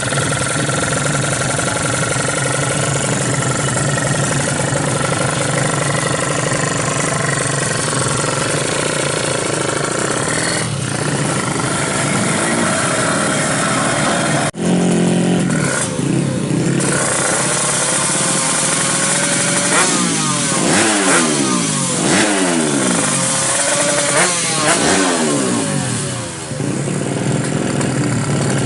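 Race-tuned 350cc Kawasaki Ninja motorcycle engine running loud and steady, then revved up and down several times in quick succession in the second half while it is being set up.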